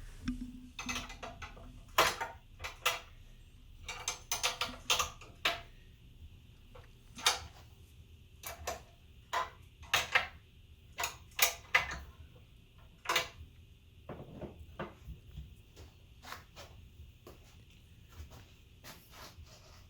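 Irregular clicks, clanks and knocks of metal parts being worked by hand as a benchtop belt sander is tightened back up, with the motor off. They are scattered unevenly, with a denser cluster in the first half.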